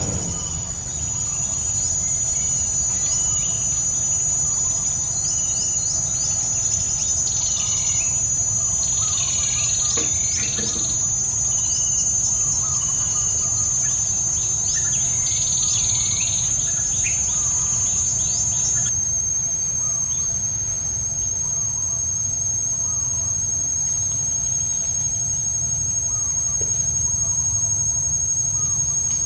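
Steady high-pitched insect drone with birds chirping over it; about two-thirds of the way through the drone shifts abruptly and the chirps thin out. A low, steady rumble lies underneath.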